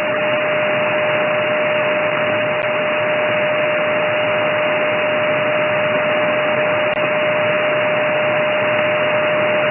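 Upper-sideband shortwave receiver audio between transmissions: an SDRplay RSPduo on the 20 m band, fed by a Mini Whip active antenna, giving a steady, telephone-narrow hiss of band noise with a steady whistle through it.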